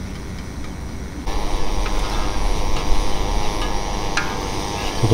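Broth being stirred with a spoon in a stainless steel pot on a camp stove: a steady rushing noise with a few light clinks of the spoon against the pot. The noise steps up about a second in.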